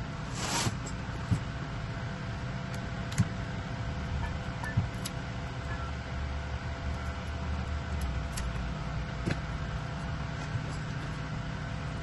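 Hand tools and small parts being handled on a wooden table: a short rustle about half a second in, then sharp clicks several times as wire cutters and pliers are picked up and worked. Under it a steady low machine hum.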